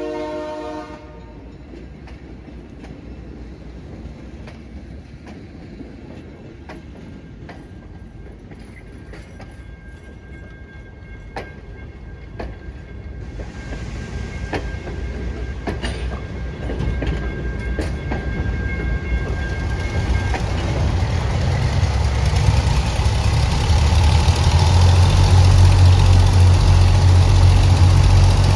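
Diesel locomotive horn chord from a New York & Lake Erie FPA4, cutting off about a second in. A train then rolls by with wheels clicking over rail joints and a thin steady squeal in the middle. In the last third a heavy low diesel engine rumble builds and grows steadily louder.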